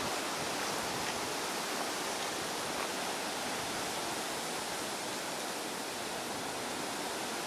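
A steady, even outdoor hiss with no distinct sounds standing out from it.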